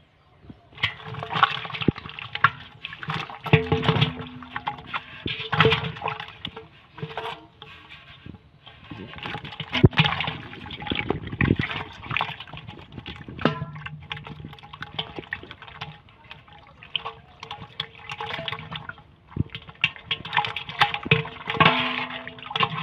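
Wet squelching and sloshing of a mass of live, slimy fish squirming against each other as a hand digs among them, in irregular bursts with sharp wet clicks.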